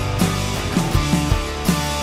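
Background music: an upbeat rock-style track with guitar over a steady drum beat.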